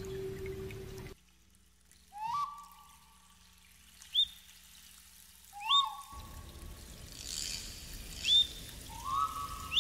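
A string of short rising whistle-like bloops, five of them spaced a second and a half to two seconds apart, each sliding up and then holding briefly. The first second has a faint steady tone that cuts off abruptly into silence.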